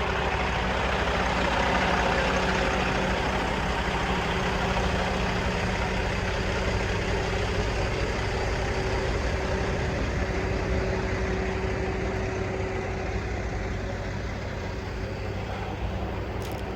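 Semi truck's diesel engine idling with a steady drone, slightly louder about two seconds in.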